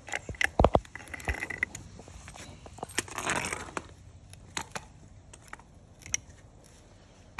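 Soil-pipe snap cutter being ratcheted around a clay sewer pipe: a run of metallic clicks and knocks, loudest about half a second in. A short scraping rush follows around three seconds in, then a few scattered clicks.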